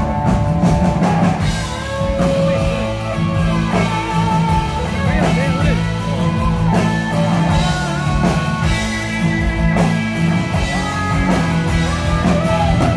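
Live country-rock band playing an instrumental break between choruses: a bending guitar lead over drums and bass.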